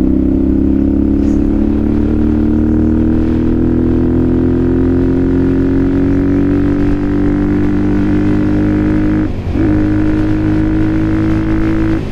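Benelli TNT125's 125 cc single-cylinder four-stroke engine running under way, its pitch rising slowly as the bike gains speed. A brief dip in revs comes about nine seconds in, then it runs steady.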